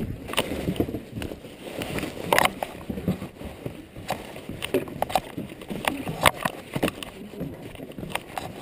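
Footsteps on a wooden boardwalk: a string of irregular knocks and taps at walking pace.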